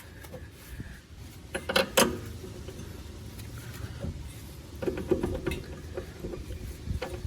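Metal clinks and knocks of hand tools against the strut and its lower mounting bolt as they are lined up. The loudest pair comes about two seconds in, with a cluster of lighter knocks around five seconds, over a low steady hum.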